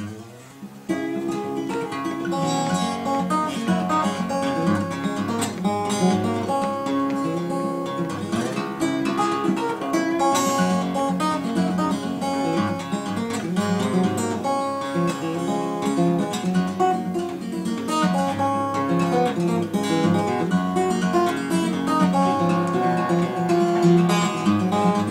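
Solo acoustic guitar played fingerpicked, a steady thumbed bass under a picked melody, coming in fully about a second in.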